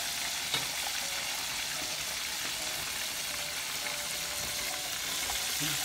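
Striped bass fillets sizzling steadily as they fry in oil in a pan, with a light click about half a second in.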